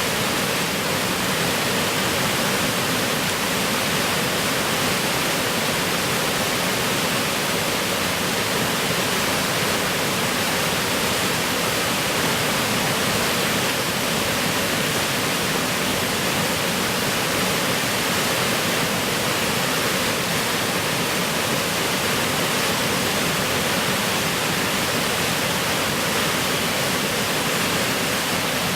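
Waterfall running with a steady, even rushing that does not change.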